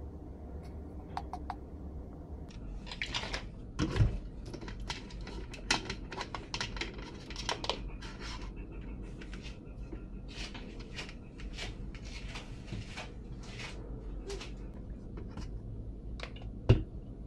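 Kitchen handling sounds of a portable blender cup and a protein powder pouch: rustling, scraping and plastic clicks, with a thump about four seconds in and a sharp knock near the end.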